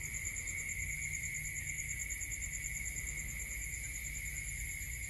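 Steady chorus of night insects: several unbroken high-pitched trills at different pitches, one with a fast pulse, over a faint low rumble.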